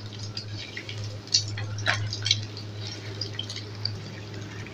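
Egg-coated shami kababs sizzling as they shallow-fry in hot oil, with scattered crackling pops and the clicks of a metal spatula against the pan as a kabab is turned over. A steady low hum runs underneath.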